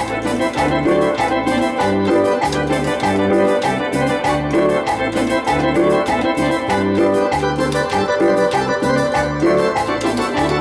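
Korg Triton synthesizer keyboard playing a cumbia-style tune: chords over a repeating bass line with a steady drum beat.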